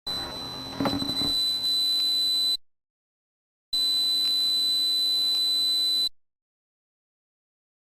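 A high-pitched electronic tone used as a tinnitus masking sound, steady, with fainter higher overtones and a faint low hum beneath. It plays in stretches of about two and a half seconds that start and cut off abruptly, with about a second of silence between them and a longer silence near the end. A brief crackle sits under the tone about a second in.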